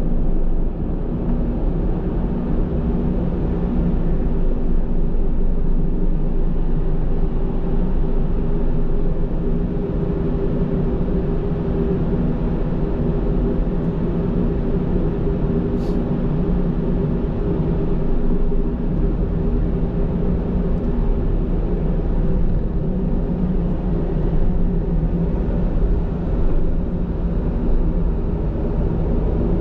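Steady low vehicle engine drone with a constant hum, holding the same pitch throughout; a single faint click about sixteen seconds in.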